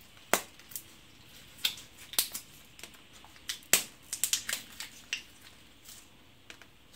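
Capsules being pressed out of a plastic-and-foil blister pack by hand: a scatter of sharp clicks and crackles as the foil pops, the loudest about a third of a second in and near the middle.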